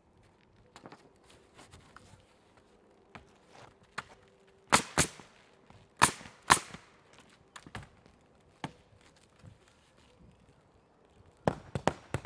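Sharp nailing strikes as 1x4 wooden furring strips are fastened to a roof: two quick pairs of loud strikes near the middle, a few lighter knocks between, and a fast cluster of strikes near the end. A faint steady hum runs underneath.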